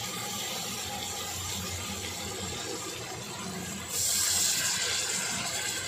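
Marinated chicken leg pieces sizzling as they shallow-fry in hot oil and butter. About four seconds in, the sizzle turns suddenly louder and brighter as a piece is turned in the pan.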